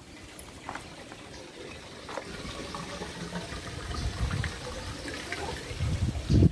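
Wet concrete mix poured and scooped from a plastic bucket into baluster molds, with small knocks throughout, low thumps about four seconds in, and a heavier thump near the end.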